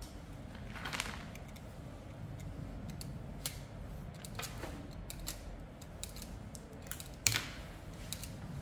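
Scattered sharp clicks and snips of hand tools, pliers and wire strippers, as electrical cable is cut and its insulation stripped, with small parts being handled between them. The sharpest snip comes about seven seconds in.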